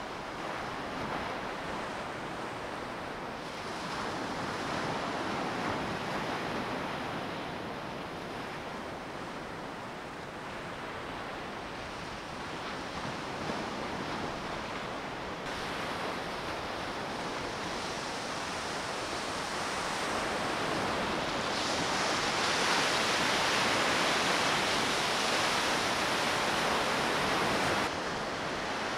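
Surf washing onto a beach, a steady rushing that swells and eases over several seconds, loudest near the end before dropping off abruptly.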